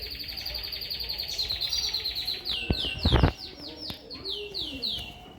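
A small songbird singing: a string of quick, high, falling whistled notes with a fast trill through the first half, then more falling notes. A single loud thump about three seconds in.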